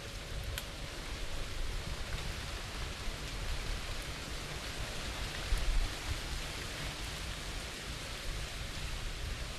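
Steady rain falling, an even hiss of drops with a low rumble underneath, and a single sharp tick about half a second in.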